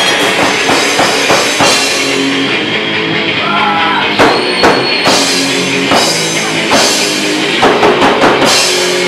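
Live punk band playing loud, with bass guitar and a drum kit; sharp drum strikes stand out about four seconds in and again near the end.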